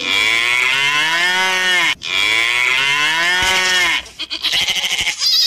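Cattle mooing: two long calls of about two seconds each, rising then falling in pitch, then a goat bleating with a rapid quaver near the end.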